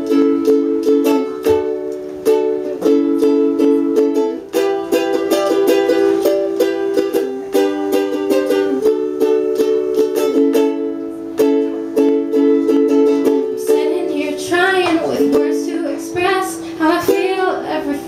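Ukulele strummed in steady chords through an instrumental break between verses, with a woman's singing voice coming in over it about fourteen seconds in.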